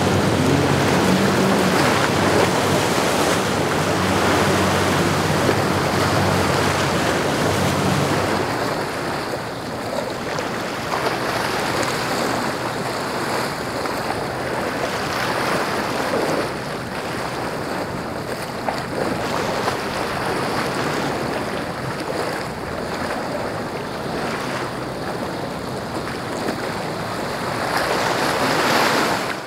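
Azimut 70 motor yacht's engines running as it passes at speed, with the rush of its wake and the wind. After about eight seconds the engine hum drops away, leaving steady wind and waves.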